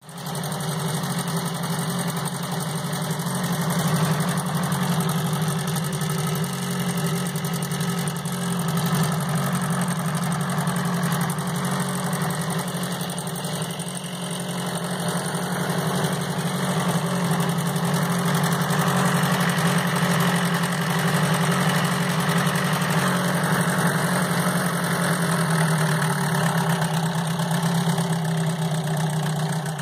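Mercury Gnat 4 hp outboard motor running steadily at idle, its lower unit in a test barrel of water.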